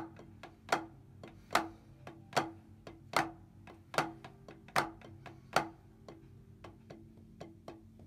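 Two drummers playing a rudimental snare drum solo in unison at a slow tempo with wooden drumsticks on practice pads, one rubber-topped and one a wooden board. Loud accented strokes fall about every 0.8 seconds with softer taps between. The loud accents stop about six seconds in, leaving only soft taps.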